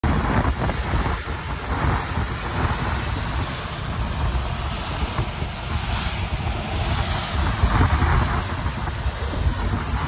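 Wind buffeting the microphone over the rushing hiss of a ship's bow wave breaking around the bow. The water noise swells and eases every few seconds.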